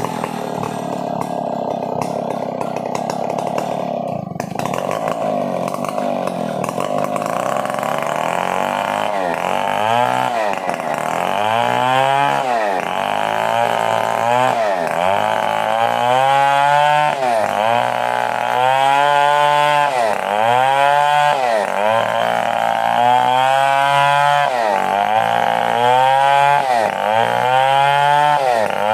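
Stihl 070 two-stroke chainsaw running under load while cutting wood. From about eight seconds in, its engine pitch dips and recovers about once a second.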